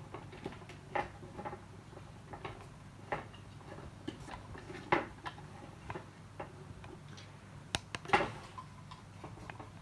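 Irregular small clicks and taps of plastic parts and wires being handled as wires are pushed into a lamp kit's housing, with a louder cluster of clicks about eight seconds in. A faint low hum runs underneath.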